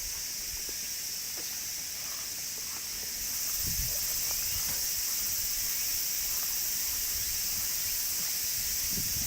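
A steady, high-pitched insect chorus that grows louder about three seconds in, with a few faint low thumps.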